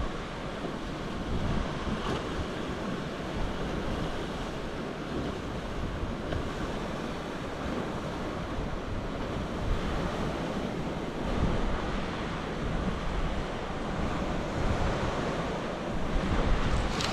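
Sea surf washing steadily on the shore, with wind buffeting the microphone as a low, fluctuating rumble.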